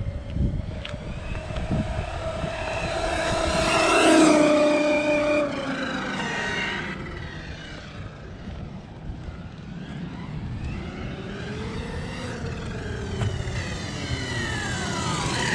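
Eachine EAT02 1/8-scale brushless RC monster truck on a full-throttle speed run. Its motor whine climbs in pitch and loudness to a peak about four seconds in, then drops away as the truck runs off. It builds again later and sweeps down in pitch near the end as the truck passes on its way back.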